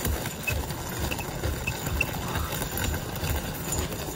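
Wheelchair rolling over gravel, with the crunch of footsteps on the gravel at about two steps a second.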